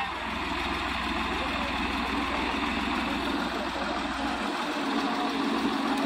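Swaraj 744 FE tractor's diesel engine idling steadily.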